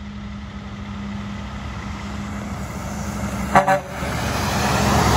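Diesel semi-truck approaching, its engine drone growing steadily louder as it nears, with a short toot of its horn about three and a half seconds in.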